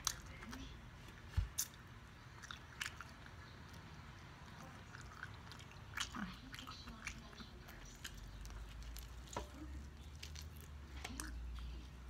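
Quiet chewing of fried perch eaten by hand, with scattered soft mouth clicks and smacks.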